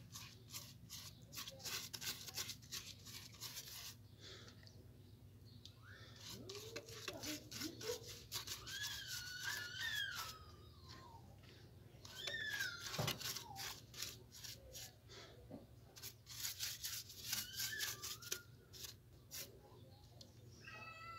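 A paintbrush scraping quick, repeated strokes of wet cement slurry onto the rough inside of a cement plant pot. A few wavering, gliding animal calls sound over it several times.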